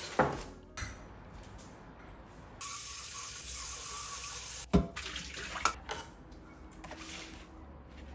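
Water running for about two seconds, between a few sharp knocks.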